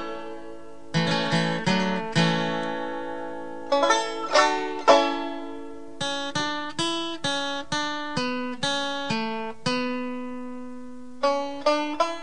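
Background music: a plucked-string instrumental, notes picked one after another in quick runs, each ringing and fading, with one note left to ring out near the end.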